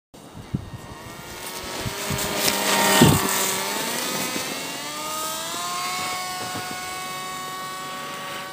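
Brushed electric motor and propeller of an Art-Tech Winged Dragon RC plane whining in flight. It grows louder to a peak about three seconds in as the plane passes, then holds steadier, with the pitch shifting.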